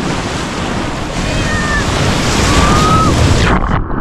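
Surf breaking and washing through the shallows, with water splashing close by, and a few faint high drawn-out tones over it. Near the end the sound suddenly goes muffled.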